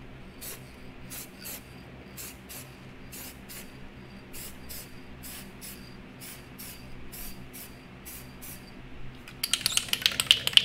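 Krylon ColorMaster aerosol spray paint going on in short, light bursts, about two a second, building a thin coat. Near the end the can is shaken, its mixing ball rattling fast and louder than the spraying.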